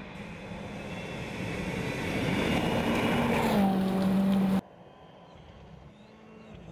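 Rally car engine at speed, growing louder as it approaches and dropping in pitch as it passes. The sound cuts off suddenly about two-thirds of the way through, leaving a quieter engine note.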